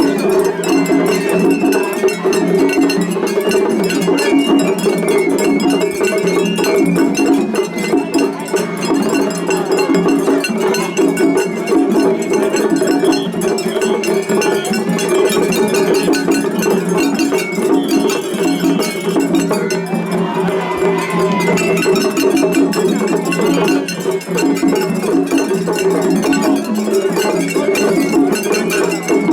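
Japanese festival hayashi music: a small metal hand gong clangs in a fast, steady rhythm, with the rest of the ensemble playing under it.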